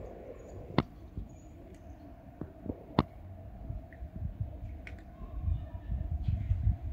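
Outdoor background noise: a low rumble that grows toward the end, with a few sharp clicks, the loudest about a second in and three seconds in, and a few faint high chirps near the start.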